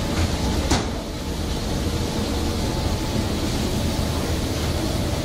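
Steady drone of fish-processing line machinery and conveyors, with a faint hum and one short clatter about a second in.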